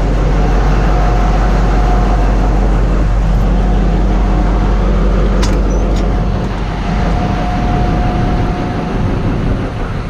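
Large diesel engine of a CAT 793C haul truck running steadily, a deep even rumble with a faint steady whine over it. Two light clicks come about five and a half and six seconds in.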